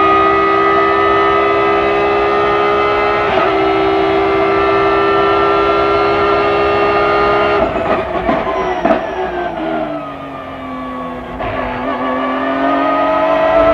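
BMW M3 GT2 race car's engine heard from on board, held at high revs flat out down the straight. About eight seconds in it breaks into a quick series of throttle blips and falling revs as the car brakes and downshifts, goes quieter briefly, then the pitch climbs steadily as it accelerates out of the corner near the end.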